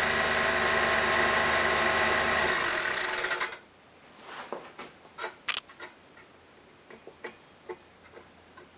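Homemade table saw driven through pulleys by a quarter-horsepower Robbins & Myers three-phase electric motor, running free with its blade spinning: a steady hum and whine that is switched off about three and a half seconds in. Faint clicks and knocks follow.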